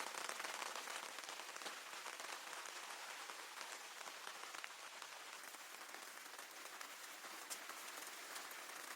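Steady rain falling on a surface, a dense even hiss dotted with fine drop ticks, easing slightly and then dropping off sharply at the very end.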